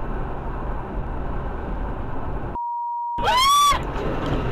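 Steady road and engine noise inside a car at highway speed, cut off about two and a half seconds in by a censor bleep: a flat tone with everything else muted. The bleep is followed by a loud, brief squeal that rises and then falls in pitch, before the road noise returns.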